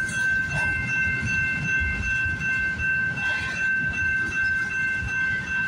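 Freight cars (covered hoppers and tank cars) rolling past on the rails: a continuous low rumble with irregular knocks from the wheels. Over it runs a steady high-pitched ringing tone.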